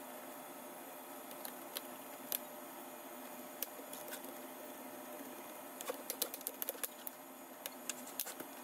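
Scattered light clicks and taps from handling a laptop and fastening its bottom panel, with a quick run of clicks about six to seven seconds in, over a steady low hum.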